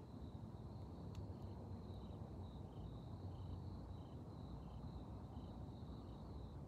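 Insects chirping at night: a steady high trill, with a softer chirp repeating about one and a half times a second, over a faint low rumble of distant traffic.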